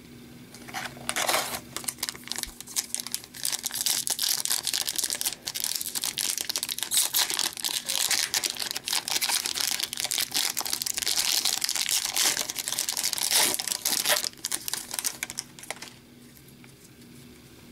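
Upper Deck hockey card pack's shiny wrapper being crinkled and torn open by hand: a dense crackling that goes on for about fifteen seconds and dies away near the end.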